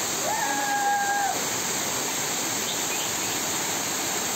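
Waterfall pouring steadily onto rock and onto people standing in the falling water. About half a second in, a single high held note sounds over it for about a second.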